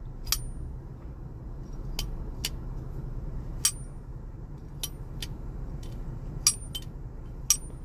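Button-lock folding knife being opened and closed: sharp metallic clicks as the blade snaps into lock and shuts, about nine at uneven intervals, over a steady low hum.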